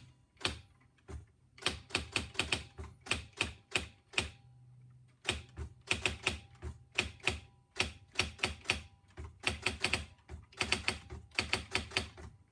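Nakajima AE-710 electronic typewriter typing: quick runs of sharp strikes from its daisy-wheel print mechanism, in bursts with a short pause about four seconds in, over a low steady hum from the machine.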